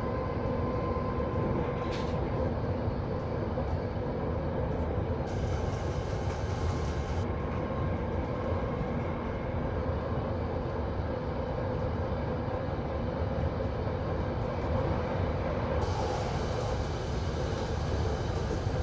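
London Underground 1972 Stock train running between stations, heard from inside: a steady rumble of wheels on rail with a constant hum. A brief rush of hiss comes about five seconds in and again near the end.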